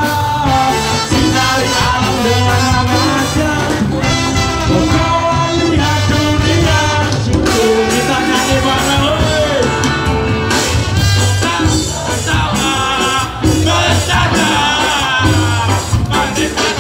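Live ska band playing loudly: a horn section with electric guitars, bass and drums keeping a steady beat.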